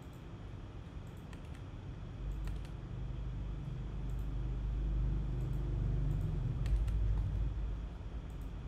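Scattered clicks of a computer keyboard and mouse. A low rumble swells through the middle and fades near the end.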